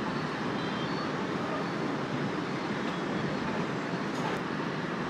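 Steady city street traffic noise from motorbikes and cars.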